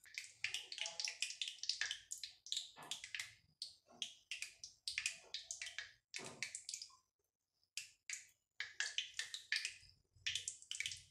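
Stainless-steel murukku press being handled and squeezed by hand, giving a faint run of quick, sharp metallic clicks and scrapes as the dough is pressed out. There is a short pause a little past the middle.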